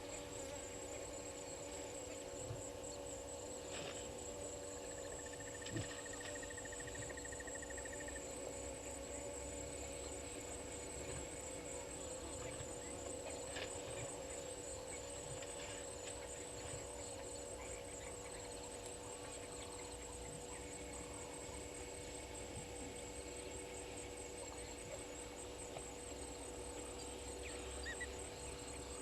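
Faint waterhole ambience in the African bush: a high-pitched insect trill runs on steadily under a low steady hum. A short pulsed trill comes about five seconds in, and there are a few faint scattered calls and ticks.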